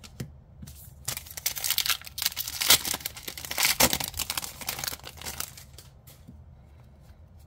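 Foil trading-card booster pack wrapper crinkling and tearing as it is ripped open. The crackle starts about a second in and dies away after about four and a half seconds.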